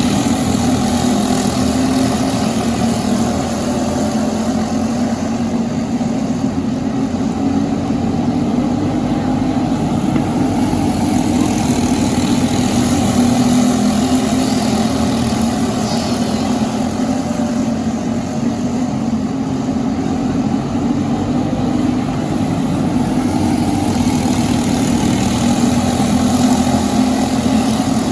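Briggs & Stratton LO206 four-stroke kart engine running at racing speed: a steady, loud drone with slight rises and dips in pitch.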